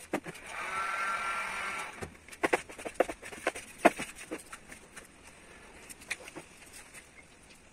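Carbon-fibre vinyl wrap film being rubbed and pressed down by hand on a car roof: a rubbing sound lasting about a second and a half, then a few sharp clicks and taps.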